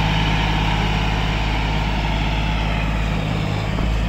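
John Deere 5045D tractor's three-cylinder diesel engine running steadily under load as it pulls a trailer through soft, muddy field ground.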